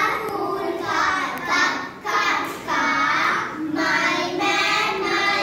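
A group of young girls singing a phonics song together, with hand gestures.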